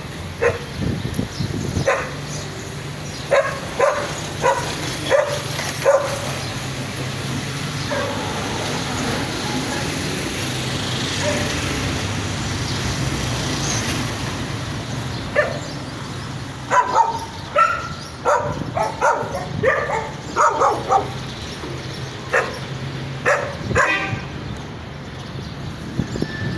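Street dogs barking in short, sharp bouts, with a lull of several seconds in the middle where only a steady low background rumble is heard.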